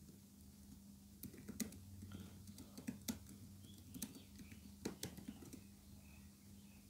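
Computer keyboard being typed on: a run of faint, irregular key clicks that starts about a second in and stops about a second before the end, over a low steady hum.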